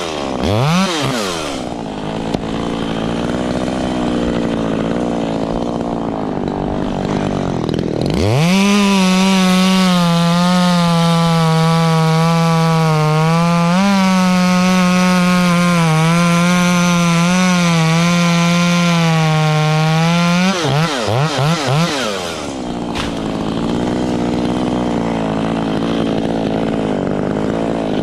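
Echo CS-3510 two-stroke chainsaw revving down and running at a low speed, then opened to full throttle about eight seconds in and held for around twelve seconds, its pitch dipping slightly as it cuts wood. It is blipped and drops back to a low speed near the end.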